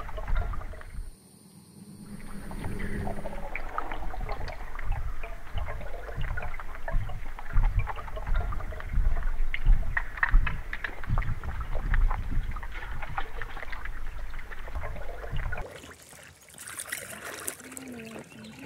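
Muffled rumbling and crackling of moving water heard through a camera held underwater beside a kayak. About three-quarters of the way through the sound opens up above the surface to the splash and trickle of a kayak paddle in the water.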